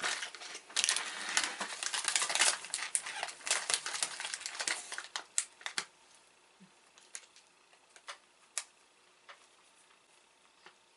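Plastic snack packaging crinkling and rustling in close, rapid handling for about six seconds, then a few scattered small clicks and taps.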